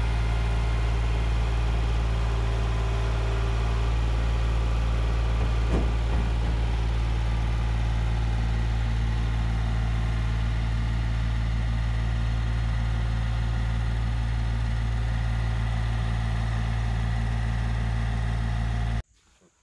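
Kubota L3901 compact tractor's three-cylinder diesel engine running steadily at a constant speed while its loader handles the totes. The sound cuts off abruptly near the end.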